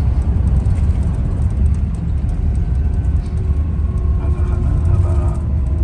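Steady low rumble of an intercity bus on the move, engine and road noise heard from inside the passenger cabin, with scattered faint ticks and rattles. A faint steady tone comes in about halfway through.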